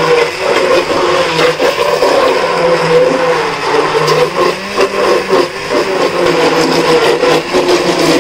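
Hand-held immersion blender running steadily in a pot of boiled tomatoes, its motor whirring as the blade purées them into a frothy liquid.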